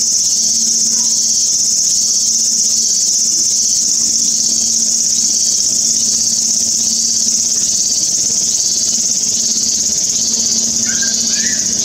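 A loud, steady, high-pitched insect chorus, with a second insect calling in even, repeated pulses a little under two a second, lower in pitch. A faint low hum runs beneath.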